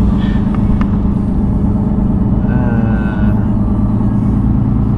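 A truck's diesel engine running, a steady low rumble.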